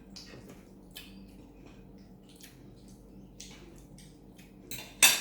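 Small clicks and taps of eating at a table, dishes and utensils being handled, with one louder sharp clatter about five seconds in.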